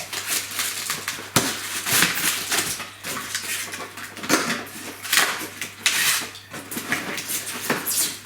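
Packaging and parts of a toy tower crane being handled and unpacked: irregular rustling with scattered clattering knocks, a few every second.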